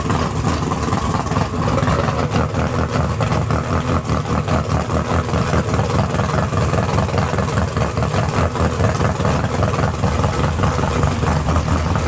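Naturally aspirated 632ci aluminum big-block Chevy V8 running at a steady idle through open chrome headers, a loud rumble of rapid firing pulses. It is a test run after the oil milkshake was cleared and broken valve springs were replaced.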